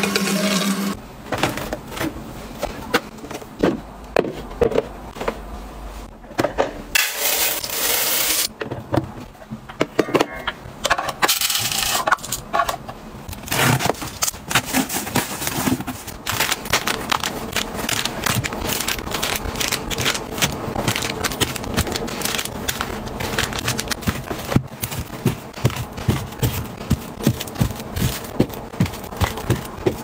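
Household items being handled and set down: many small clicks, taps and knocks with rustling between them, and a burst of hissing noise about seven seconds in, with a shorter one a few seconds later.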